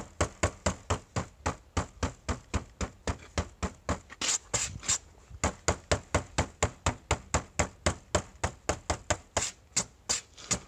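KTM 300 XC-W two-stroke engine being turned over cold on its electric starter, chugging slowly and evenly at about four compression strokes a second, with a ragged stretch about four seconds in, stopping near the end. The starter is not spinning fast enough against the heavy compression of the cold engine.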